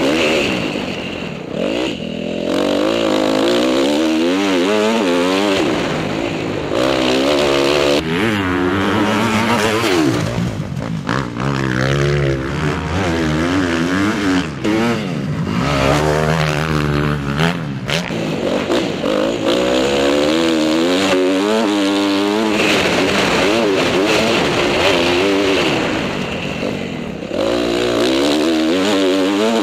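Honda motocross bike engine, heard from the rider's helmet camera, revving up and falling back again and again as it accelerates, shifts and backs off through the corners and straights of a dirt track.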